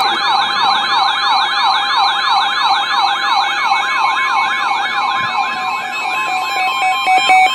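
Electronic siren-like alert tone between emergency alert broadcasts, warbling rapidly up and down about three times a second. Near the end it gives way to steady tones and quick pulsed beeps at about the same pace.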